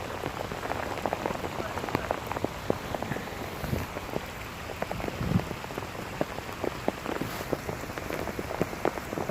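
Steady rain falling, with many irregular close drop hits pattering on and near the camera.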